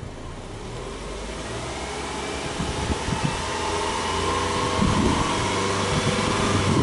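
Exhaust note of a Subaru Legacy Outback's EJ25 2.5-litre flat-four engine, heard from behind the car as the engine is revved slowly, growing steadily louder and higher.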